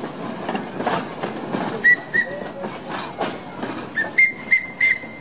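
Open passenger coaches and a caboose rolling past, their wheels clicking and clattering over the rail joints. From about two seconds in comes a run of short, high-pitched metallic pings, each starting with a sharp click.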